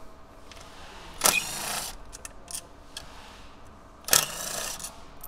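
A ratchet working the 10mm bolts that hold an engine control module to its tray: two short bursts of rapid ratcheting about three seconds apart, with a few faint clicks between them.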